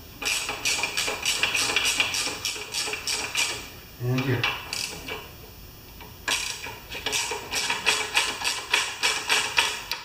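Socket ratchet clicking rapidly as the carburetor mounting nuts are backed off a Briggs & Stratton lawn mower engine, in two long runs with a pause about four seconds in.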